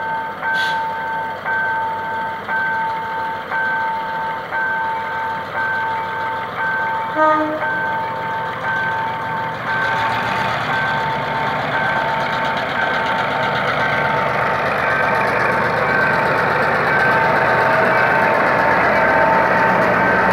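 Level-crossing warning signal beeping a steady two-tone alarm about once a second. From about halfway through, a GM G22W diesel locomotive hauling a passenger train grows louder as its engine and wheels draw up to and pass the crossing. A short toot about seven seconds in.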